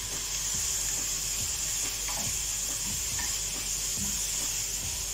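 Chopped tomatoes, onion, garlic and ginger sautéing in oil in a stainless steel pan, giving a steady sizzle, stirred with a wooden spatula that knocks lightly a few times.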